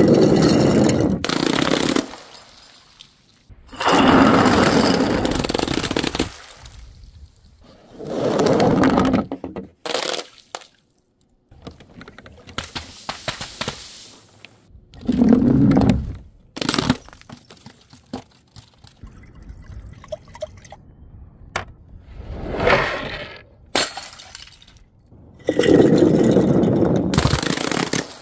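Glass bottles and jars smashing in a string of separate crashes, about eight in all, each a burst of breaking glass lasting up to a couple of seconds.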